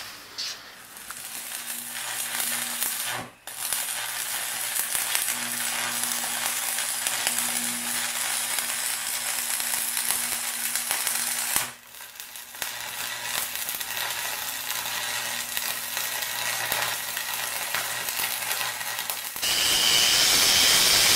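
Electric arc welding on a steel motor mount: a steady crackling sizzle laid down in three long beads, with a short break about three seconds in and another about twelve seconds in. Near the end an angle grinder takes over, louder and steady with a high whine, as it grinds the welds.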